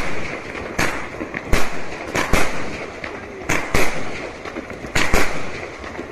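Fireworks going off: a series of sharp bangs, about eight, irregularly spaced and several in quick pairs, over a steady crackling background.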